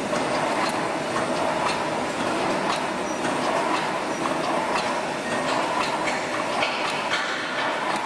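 A 2.4 m double-row wire mesh welding machine running: a steady mechanical clatter with a sharp click about once a second.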